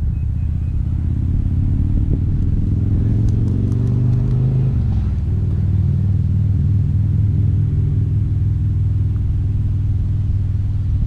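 Steady low rumble of wind buffeting the microphone, with a few faint ticks about three seconds in.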